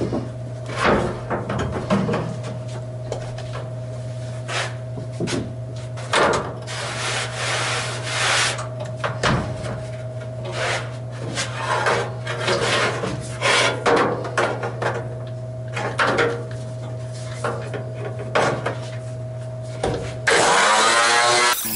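Electric angle grinder running with a steady whine, its disc scraping the sheet steel of a car fender in short, irregular passes. About a second and a half before the end it gives way to a louder burst of music.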